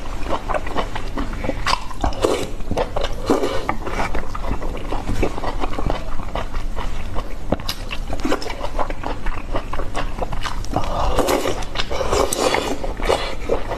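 Close-miked chewing and biting of cooked octopus tentacle: a run of irregular clicks and smacking mouth sounds, busiest near the end.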